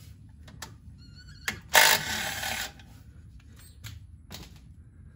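Cordless impact driver running in one burst of about a second as it backs out a cylinder head bolt, with a few light metallic clicks of tool and bolt handling before and after.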